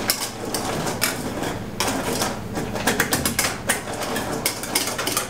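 Wire whisk stirring crushed Oreo cookies through an ice cream base in a stainless steel bowl, its wires scraping and clicking against the metal rapidly and without pause.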